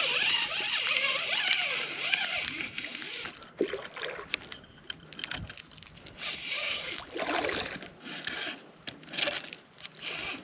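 Spinning reel being cranked to bring in a hooked fish, with swishing and sloshing water as the fish is drawn into the shallows.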